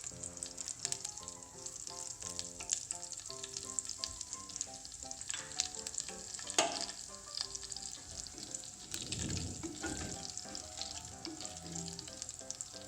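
Cumin seeds spluttering in hot ghee in a pan: a steady sizzle with many small crackles and pops as the seeds crackle, with a brief stir of the pan about nine seconds in.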